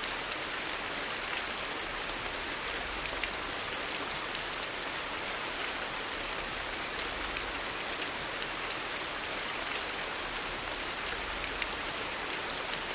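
Steady rain: an even hiss with many small drop ticks.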